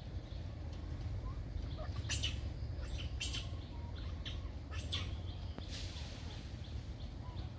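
A loose string of short, high chirps, clustered from about two to six seconds in, over a steady low rumble.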